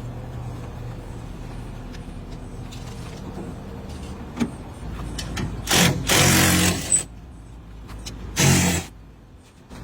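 A vehicle engine idling steadily, with two short loud mechanical whirs, one about six seconds in and a shorter one about eight and a half seconds in.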